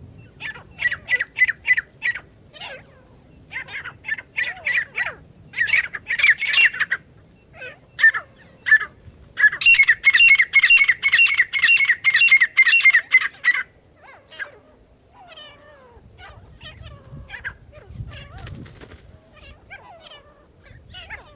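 Grey francolin (teetar) calling: loud runs of short, sharp repeated notes. The longest and loudest run comes about halfway through, at roughly four notes a second. It is followed by fainter, more varied chirping calls.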